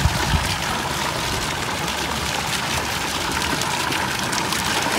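Water running steadily at a swimming pool, a constant trickling rush, with two small knocks near the start.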